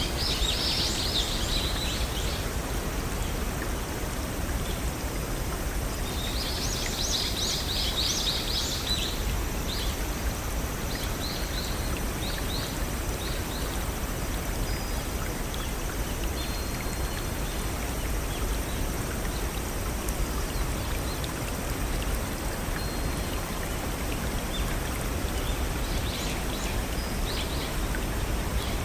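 Steady rush of a brook over small waterfalls, with songbirds chirping in quick high trills near the start, again a few seconds later, and briefly near the end.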